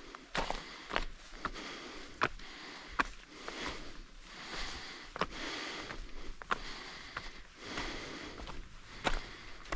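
A hiker breathing hard in repeated heavy breaths, with sharp irregular footsteps on the trail between them.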